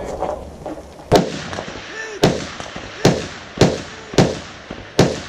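Six rifle shots from an AR-15-style rifle fired from the prone position, irregularly spaced about half a second to a second apart, each with a short echoing tail.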